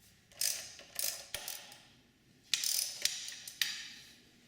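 Socket ratchet clicking in two runs of strokes as a 12mm socket loosens the front fork axle pinch bolts on a Honda Gold Wing GL1800.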